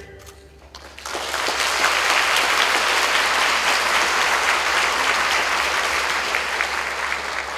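Audience applause: after the music dies away, clapping breaks out about a second in, holds steady, and begins to die down near the end.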